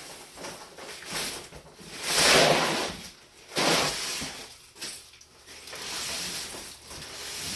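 Rustling and scraping as heavy sawmill rail sections and their packaging are handled. A louder noisy rush about two seconds in lasts about a second, and two weaker ones follow.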